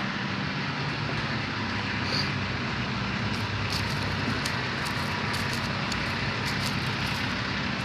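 A steady machine drone: a low hum under an even hiss, without change, with faint short high ticks over it from about three seconds in.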